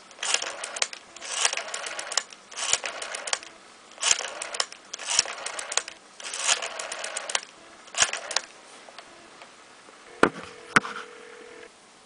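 1949 Western Electric Model 302 rotary dial dialing out: seven digits, each a pull of the finger wheel followed by its clicking, whirring spring return as it sends the pulses. Near the end come two sharp clicks and a steady tone lasting about a second and a half.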